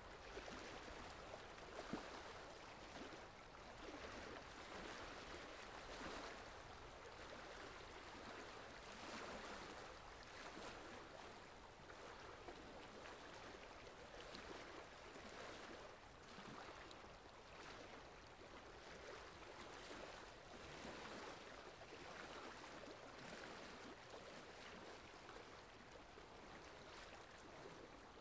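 Faint, steady rain falling: an even hiss that swells gently now and then.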